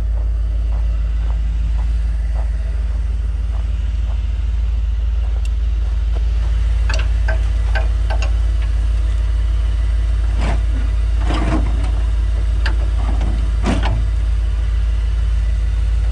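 A vehicle engine idling steadily, with a few knocks and clatters about seven seconds in and again between ten and fourteen seconds.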